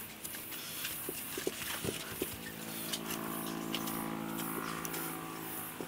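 Light clicks and knocks of metal piston-and-rod assemblies being handled on a wooden workbench, with a steady hum underneath.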